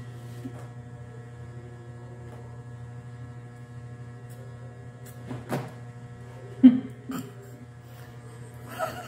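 Steady low electrical hum with a buzzing edge, broken by a few brief sounds near the middle and one short, loud sound about two-thirds of the way through.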